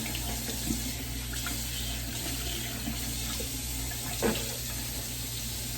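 Steady hiss of running water, like a tap, with one short vocal sound about four seconds in.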